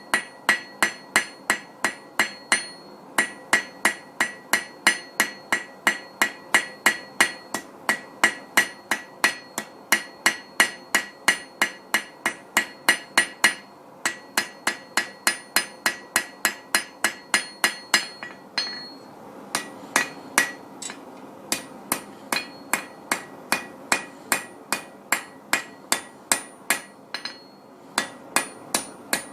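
Rounding hammer striking hot steel on an anvil in a steady rhythm, about three blows a second, each with a bright metallic ring, as a leaf is drawn out with the edge of the hammer. The hammering pauses briefly about two-thirds of the way through and again near the end.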